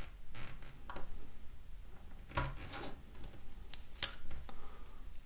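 Knife blade cutting and scraping along self-adhesive aluminium foil tape wrapped round a lure weight: a few short scratches and crinkles of foil, sharpest about four seconds in.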